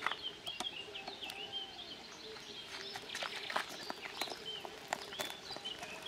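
Small birds chirping and calling over light outdoor background noise, with scattered short clicks.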